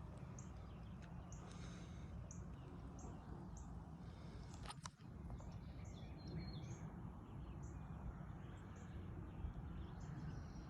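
Faint high bird chirps repeating about once a second over steady outdoor background noise, with a brief break about five seconds in.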